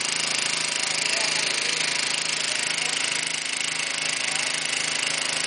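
A small engine running steadily, its drone unchanging throughout.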